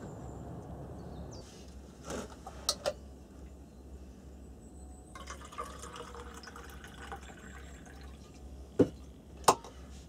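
Liquid trickling quietly, with a few sharp clicks and knocks.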